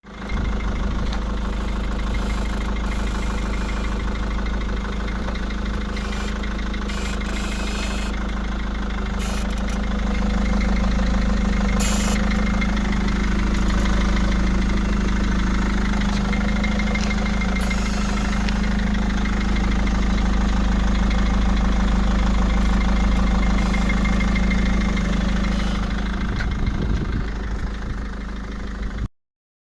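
Steady running noise of a Mercedes-Benz W211, a low engine hum with a few faint clicks. The car has a suspension noise that the owner cures by replacing part A 220 333 04 27. The sound cuts off suddenly near the end.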